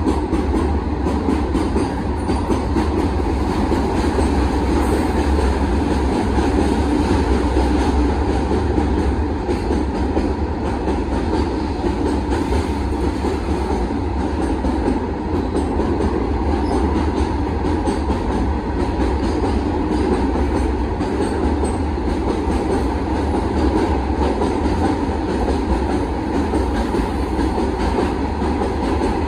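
Freight train of open-top wagons rolling past at speed: the wheels on the rails make a steady, loud rumble and clatter.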